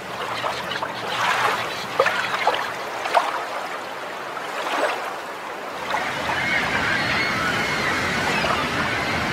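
Ambient field-recording layer opening a deep house track: a steady wash of noise with a few scattered knocks, joined about six seconds in by faint voices and a wavering higher sound.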